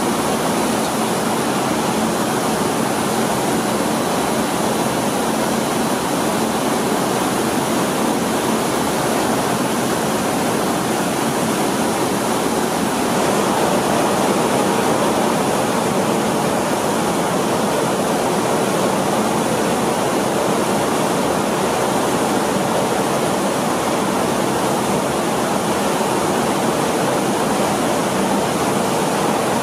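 Rice-mill machinery running with a steady rushing noise and a faint hum, as milled rice grains stream down a chute.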